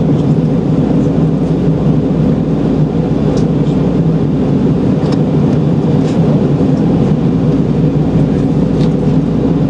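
Jet airliner cabin noise at a window seat over the wing: the steady low drone of the engines and rushing air during the descent for landing.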